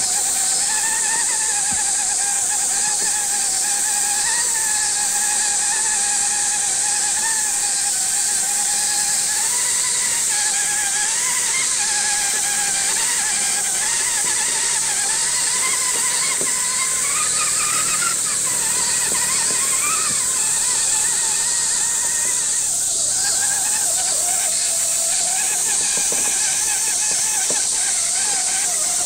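Electric motor and gear drive of an RC4WD Trail Finder 2 scale crawler whining as it crawls, the pitch wavering with the throttle. The whine climbs for a few seconds around the middle, then drops back. A steady high hiss runs underneath.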